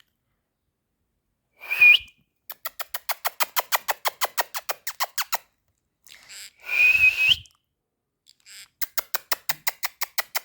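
A pet parrot calling: two short whistled calls that rise in pitch at the end, each followed by a fast run of short repeated notes, about seven a second.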